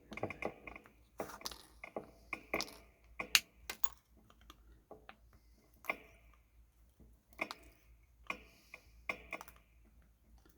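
Irregular sharp clicks and taps, thick in the first few seconds and then sparser, from small electronic components and hand tools being handled on a workbench during a kit build.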